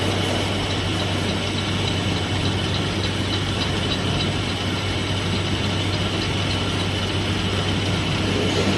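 Edge milling machine's single milling head cutting a bevel along the edge of a steel plate: a steady machining noise with a constant low hum and faint, regular ticking.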